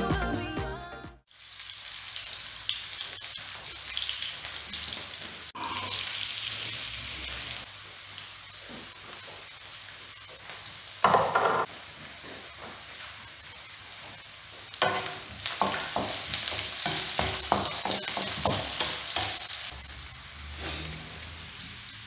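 Sliced onions sizzling as they fry in a nonstick wok, with a wooden spatula stirring and scraping them now and then.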